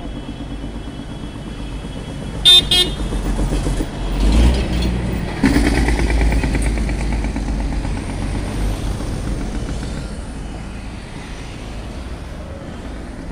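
Cars passing close on a narrow road, with two short car-horn toots about two and a half seconds in. The traffic noise swells as vehicles go by between about four and seven seconds in, then fades.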